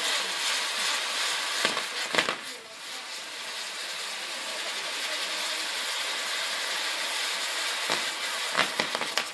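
Spinning ground-firework wheel burning with a steady hiss of sparks, with a few sharp cracks about two seconds in and again near the end.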